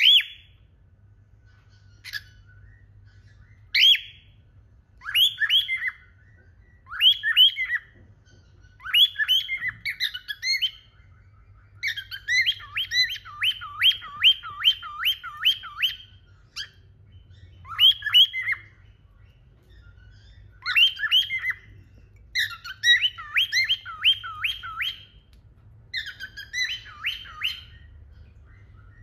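Cockatiels chirping and whistling: single sharp calls a few seconds apart, then runs of quick repeated whistled notes, about two or three a second, starting about twelve seconds in.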